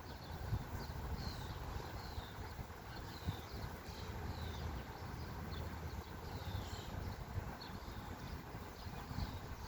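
Honeybees buzzing around an opened hive, a steady low hum, with small birds chirping repeatedly in the background.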